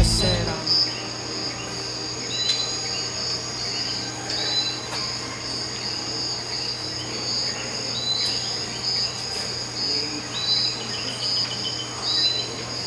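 Night insects chirping in a steady, pulsing high trill, with a short higher chirp every second or two, over a low steady hum.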